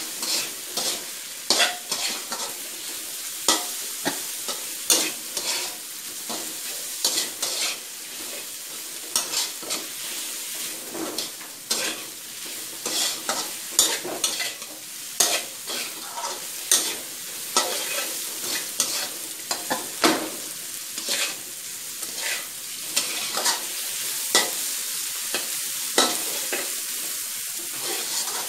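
Metal spatula scraping and clacking against a wok as shrimp are tossed and stir-fried, with a continuous sizzle of hot oil under the repeated irregular strokes.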